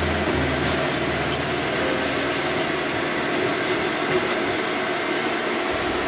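Light rail tram running along the track, heard from inside the cab: a steady rumble and hiss of wheels on rail and running gear.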